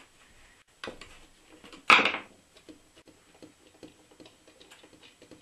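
Screwdriver working the screws that hold the handle on an aluminium LED floodlight housing: a run of small clicks and scrapes, with a louder knock about two seconds in.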